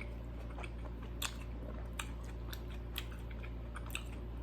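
Close-up chewing of a bite of burger: faint, sparse wet mouth clicks, a few per second at most, over a steady low hum.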